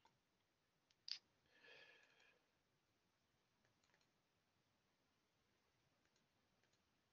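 Near silence, with a single sharp click about a second in and a brief faint sound just after it.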